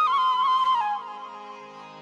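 Background music: a flute melody with quick trills over a steady low drone, the phrase stepping down and fading away about halfway through.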